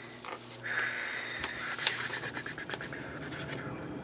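Washi tape being peeled off its roll in one long steady pull, a rasping sound starting about half a second in, with a couple of light clicks of handling.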